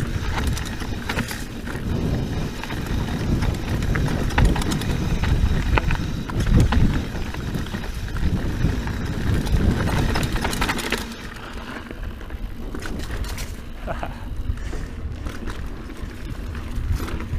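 Scott Genius full-suspension mountain bike riding over rocky dirt singletrack: tyre and trail noise with frequent sharp clicks and knocks of the bike rattling over rocks. It gets a little quieter about two-thirds of the way through.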